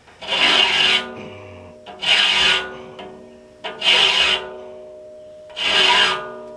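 Hand file rasping across the steel teeth of a large circular sawmill blade to sharpen them: four slow strokes about two seconds apart, each leaving the steel blade ringing with a steady metallic tone that slowly fades.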